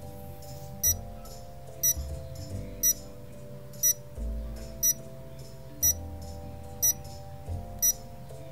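Countdown-timer sound effect: a short, high, bell-like tick once a second, over soft sustained background music.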